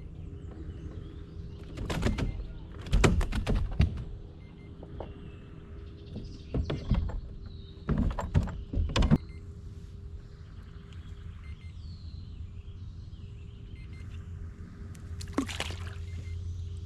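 Several clusters of sharp knocks and clatters over a steady low hum.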